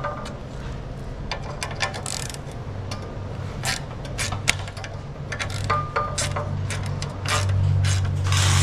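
Small hand ratchet with an 8mm socket clicking in short runs, with light metal taps, as the nuts holding the exhaust valve are backed off. A low steady hum runs underneath, louder near the end.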